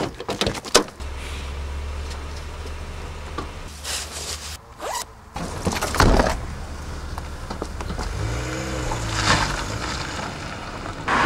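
Ford Escort hatchback's engine running with a steady low hum, a few sharp knocks about six seconds in, then the engine revving up and back down near the end as the car pulls away.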